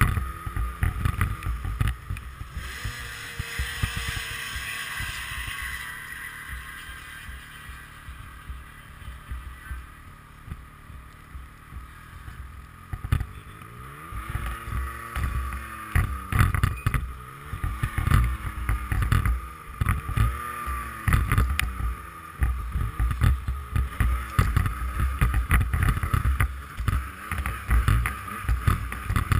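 Yamaha FX Nitro snowmobile's four-stroke three-cylinder engine running at low speed, with rumble and wind on the microphone. It runs quieter through the middle, then from about halfway revs up and falls back repeatedly in short blips.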